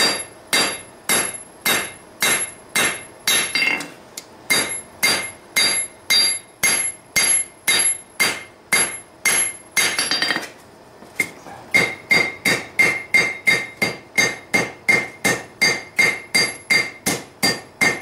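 Hand hammer forging a red-hot railroad-spike blade on a steel anvil, shaping its hooked curve. Steady blows come about two a second, each with a short metallic ring. After a brief pause just past the middle, quicker blows come about three a second over the horn, with a clearer, higher ring.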